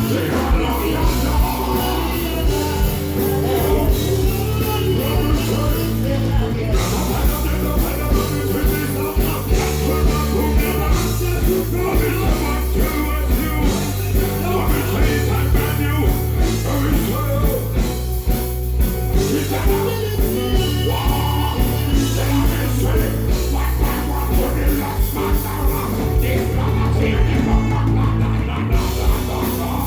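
Loud amplified band music with a steady beat and heavy bass, with some singing over it.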